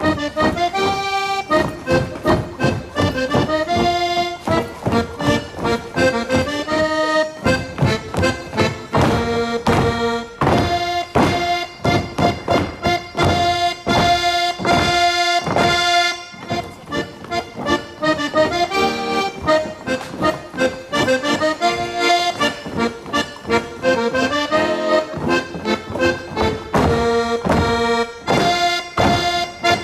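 Accordion playing a folk waltz tune, a melody over a steady beat.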